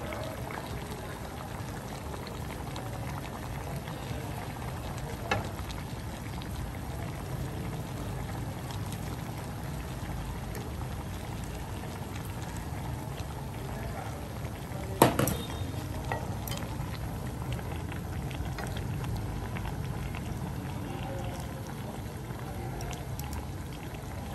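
Food bubbling steadily as it cooks on the stove, with a sharp knock about five seconds in and a louder knock about fifteen seconds in.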